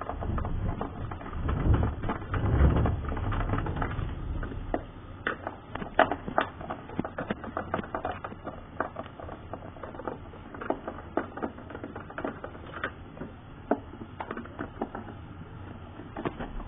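Hands handling the plastic housing and hose of a Bissell PowerForce Helix upright vacuum: irregular plastic clicks and taps, with heavier bumps and rumbling in the first few seconds.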